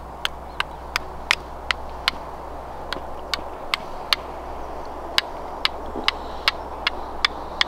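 Flint and steel fire-lighting: a steel striker struck down against a hand-held flint, giving sharp clicks about two to three times a second as sparks are thrown onto charcoal tinder.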